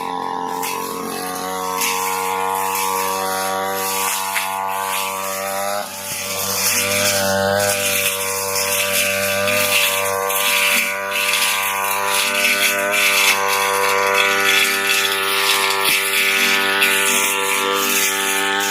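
Petrol brush cutter engine running steadily at high revs while cutting grass. There is a brief dip about six seconds in before it picks up again.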